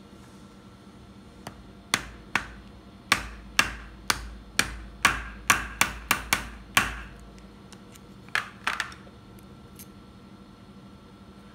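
A mallet tapping a steel socket held over a ball bearing, driving the bearing onto the rotor shaft of a brushless DC fan motor: about a dozen sharp knocks with a short ring, coming quicker in the middle, then a few more after a pause.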